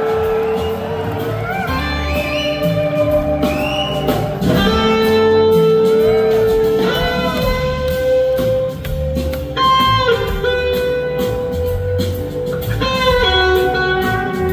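Live rock band with an electric slide guitar solo on a red Gibson SG: long held notes that glide and bend between pitches, over drums, bass and organ.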